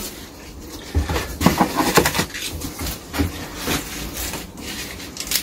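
Parsnip plant being handled: its leaves and stalks rustle and crackle, with a run of small clicks and knocks.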